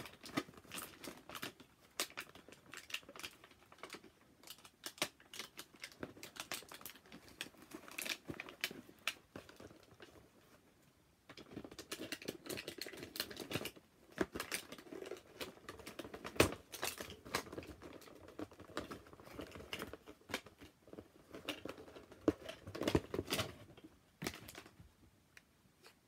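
Scissors snipping and cardboard and plastic packaging rustling and tearing as a toy box is cut open, in a run of irregular clicks and crinkles with one sharp click partway through.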